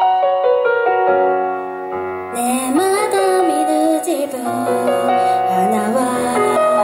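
Idol-pop song: a piano line stepping down note by note, then about two seconds in the full backing track comes in with a bright, busy top and a wavering lead melody.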